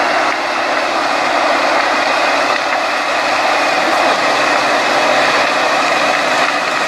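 Kirovets K-744 R2 tractor (350–400 hp) running as its front-mounted forestry mulcher grinds through young birch trees: a loud, steady mechanical noise with no let-up.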